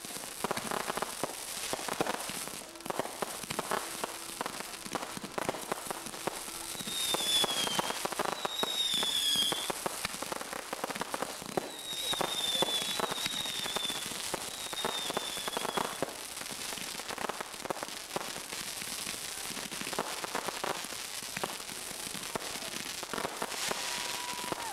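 Fireworks display: dense crackling and popping from glittering crackle stars and bursting shells, with several short whistles falling in pitch through the middle.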